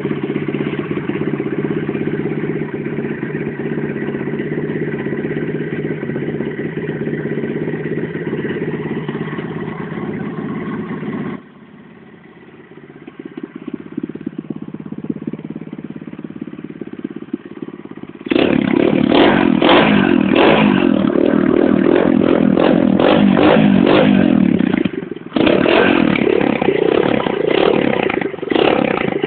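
FYM 125 dirt bike engine, fitted with a 24 mm OKO carburettor and a 250 exhaust, running steadily at first. About eleven seconds in it drops much quieter and slowly picks up. In the last third it is revved hard and loud in repeated blips, with a rough, clattering note.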